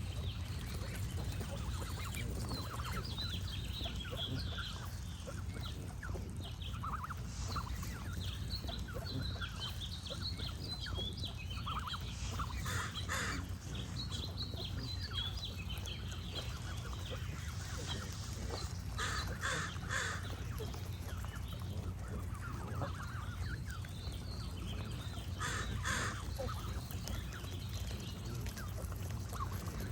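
Geese honking in short runs of two or three calls a few seconds apart, with small songbirds chirping steadily and a steady low rumble underneath.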